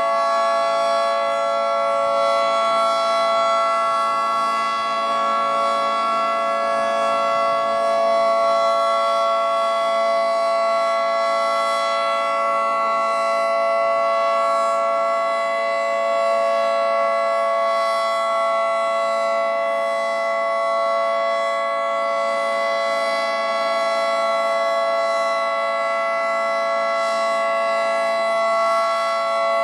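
Federal Signal 2T22B dual-tone electromechanical rotating warning siren sounding at full speed during its weekly test. It holds a steady, loud chord with no rise or fall in pitch.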